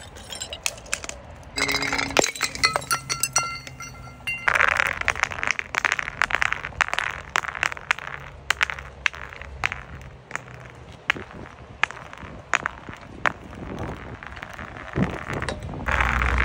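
Glass clinking and crackling on concrete: many sharp, irregular clicks, with a ringing clink held for a couple of seconds near the start.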